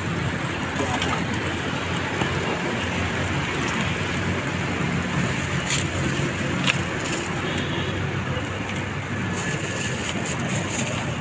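Steady background noise of a busy roadside food stall, road traffic mixed with frying on a large tawa, with a couple of light clicks in the middle.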